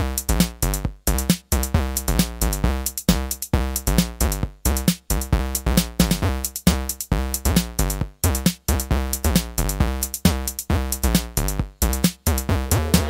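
Background electronic music with a steady drum-machine beat and synthesizer.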